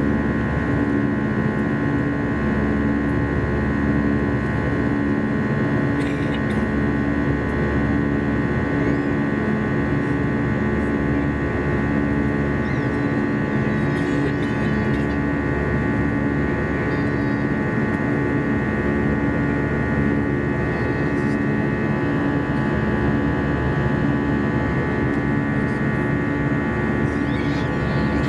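Steady cabin drone of an Airbus A320-214 in flight, its CFM56 engines running evenly. A low hum carries a slow throb about once a second, under steady whining tones.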